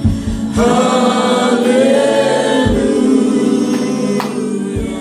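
Gospel worship song sung by a group of voices through the PA, with band accompaniment and a few drum hits. The singing comes in strongly about half a second in.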